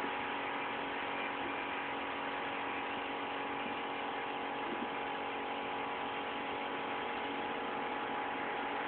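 A vehicle moving slowly through a flooded street: a steady engine hum with a constant whine, over an even wash of noise.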